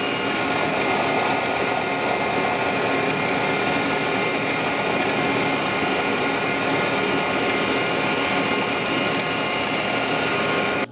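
Drill press running steadily at high speed, its bit drilling a spoke hole in a wooden model wheel.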